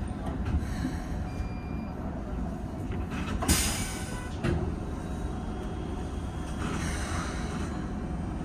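Keikyu 1500-series train running between stations, heard from on board: a steady rumble of wheels on the rails, with a short loud rush of noise about three and a half seconds in, a smaller one a second later, and a hiss around seven seconds.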